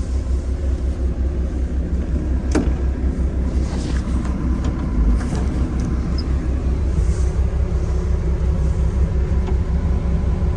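Excavator engine running steadily under load while digging, with a low pulsing rumble. A single sharp metallic knock sounds about two and a half seconds in, with a few lighter clicks a little later.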